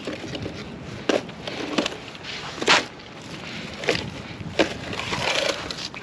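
Footsteps crunching through dry grass and dead brush, with sharp snaps of dry stems and twigs about once a second; the loudest snap comes about three seconds in.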